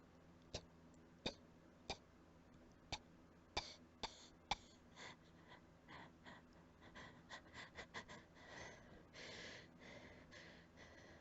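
Quiet, short coughs, which the uploader puts down to allergies: about seven sharp single coughs spaced under a second apart, then a run of weaker, quicker coughs and a longer breathy rasp near the end.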